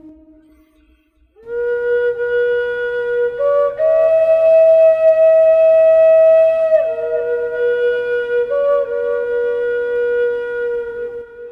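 Native American style flute in E, made by Stephen DeRuby, playing a slow improvised phrase. After a short pause for breath, a long held note steps up to a higher note held for about three seconds, then falls back to the first note with a brief ornament and stops near the end.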